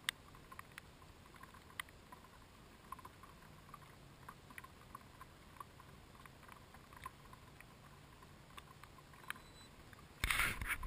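Raindrops tapping on the GoPro's plastic housing in light rain: faint, scattered, irregular ticks. A louder burst of noise comes near the end.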